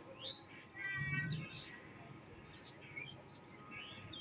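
Birds chirping: scattered short calls that slide up and down in pitch, with a brief pitched sound about a second in.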